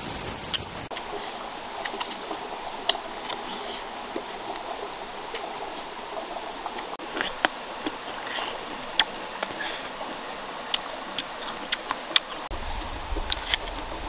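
Crisp crunches and clicks of raw guava being bitten and chewed, coming irregularly, over a steady rushing background.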